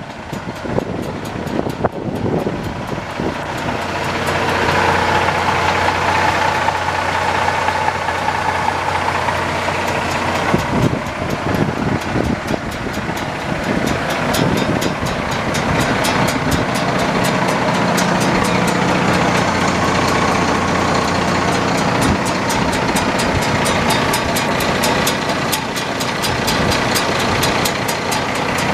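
Diesel engine of a Case IH 7140 Axial-Flow combine running steadily at idle with a fast even clatter. It grows louder over the first few seconds, then holds level.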